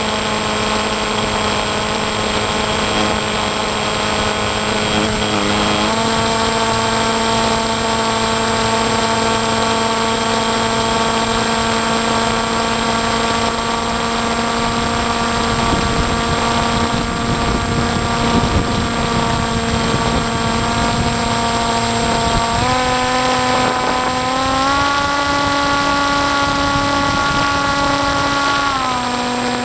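Electric motor and propeller of an FPV radio-controlled plane, heard from its onboard camera: a steady whine that steps up slightly in pitch about six seconds in, rises twice more with throttle near the end, then drops back just before the end. A low wind rush on the microphone swells about halfway through.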